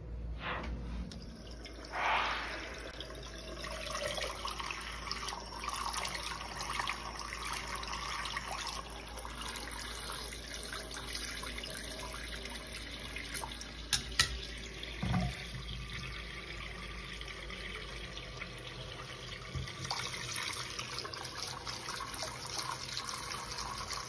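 Hot water tap running steadily into a sink, with a couple of brief knocks about fourteen and fifteen seconds in. The hot water is flowing freely now that the shower's mixer valve, which was passing cold water into the hot, has been disconnected.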